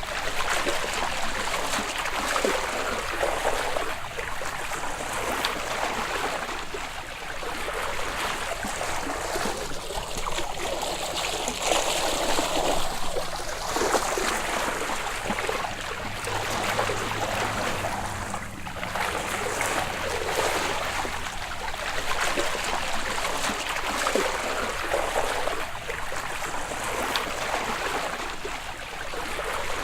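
Open water sloshing and lapping at the surface, a continuous rushing and splashing that swells and eases every few seconds.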